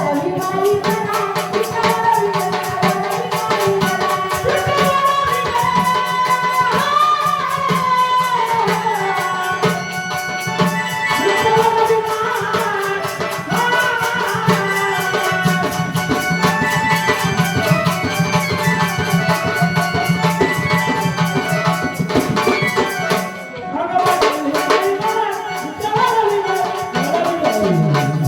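Indian devotional folk music with tabla and a fast, steady rattling percussion beat under a melody that bends up and down in pitch.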